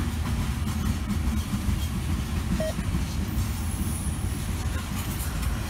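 Freight train of open-top hopper cars rolling past, a steady low rumble of steel wheels on rail.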